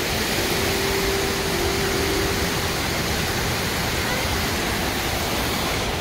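Steady rush of a waterfall's falling water, an even hiss-like noise with no breaks.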